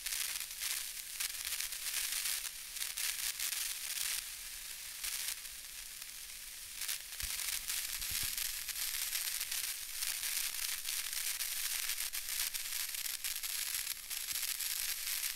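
Crackling static hiss, mostly high-pitched and full of tiny clicks, swelling and dipping unevenly, with two brief low thumps a little past the middle.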